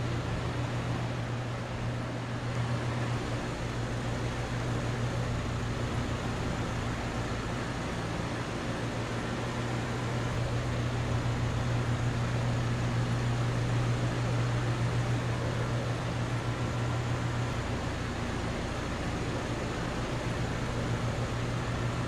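Trane XR series outdoor air-conditioner condensing unit running: a steady compressor hum under the rush of the condenser fan.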